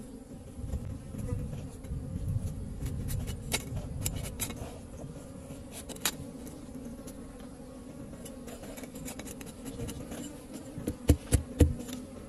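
A mass of wild bees buzzing in a steady hum, with scattered sharp clicks and a few louder knocks near the end.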